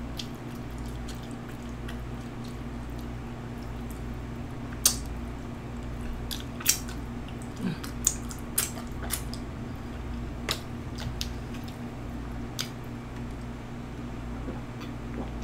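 Close-miked eating sounds: a person chewing a barbecue-sauced beef rib, with scattered sharp, wet mouth clicks and smacks over a steady low hum.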